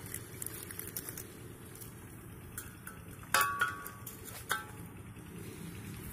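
LPG gas regulator being fitted onto a 3 kg gas cylinder's valve: sharp metallic clicks with a short ring about three and a half seconds in and again about a second later.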